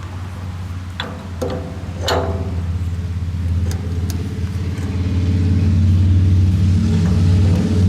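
An engine running steadily with a low hum that grows louder about five seconds in. Three ringing metal clanks sound in the first two seconds.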